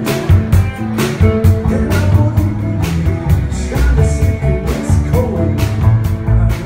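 Live band playing: drums keeping a steady beat of about two hits a second under electric bass and guitar.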